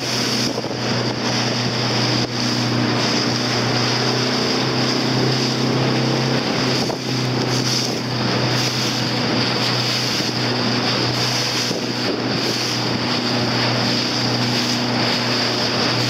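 A motorboat's engine running steadily, a constant hum, under wind buffeting the microphone and the rush of choppy water against the hull.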